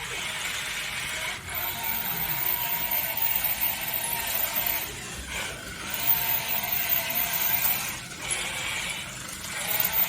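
Small electric motors and gears of toy RC vehicles whirring, the pitch and loudness rising and falling as they are driven.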